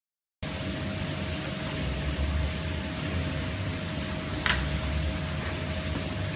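Silence, then from about half a second in a steady background noise with a low rumble and hiss and a faint steady hum; a single brief click about four and a half seconds in.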